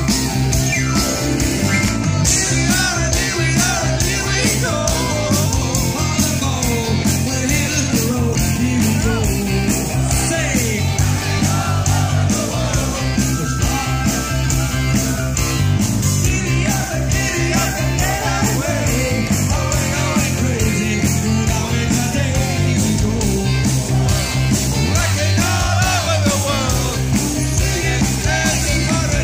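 Live rock band playing loudly: electric guitars, bass and drums through stage amplifiers, with a steady driving beat and a sung vocal.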